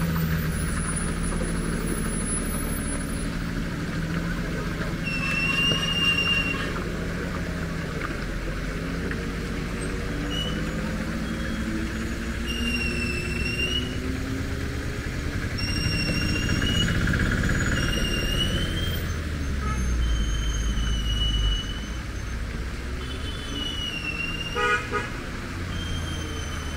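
Heavily loaded 16-wheel Tata lorry's diesel engine pulling away round a wet hairpin, its note rising, followed by cars driving past. Short high whistle-like tones repeat every two or three seconds over the engine noise.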